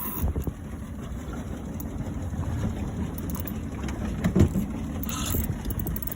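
Low, uneven rumble of a small boat on the water, with one knock about four seconds in.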